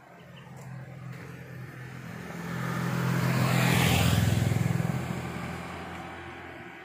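A motor vehicle passing close by: its engine grows louder, peaks about four seconds in with its pitch dropping as it goes past, then fades away.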